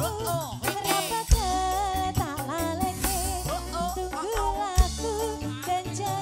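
Live band playing a Javanese pop song: a woman sings a wavering, ornamented melody over bass, drum kit, kendang hand drums and tambourine. Two sharp percussion hits stand out, about a second in and near five seconds.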